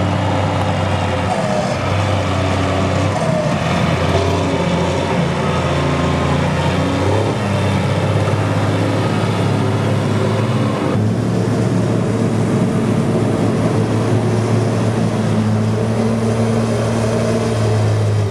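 Large farm tractor diesel engines running steadily under load, pulling full silage trailers. The engine note changes abruptly about eleven seconds in, as one machine gives way to another.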